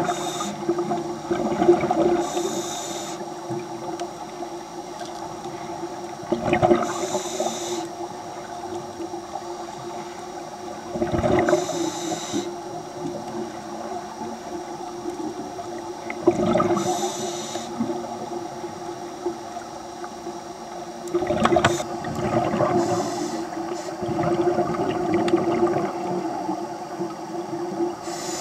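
A scuba diver breathing through a regulator underwater: a bubbling exhalation followed by a short hissing inhalation, repeating about every five seconds, over a steady hum.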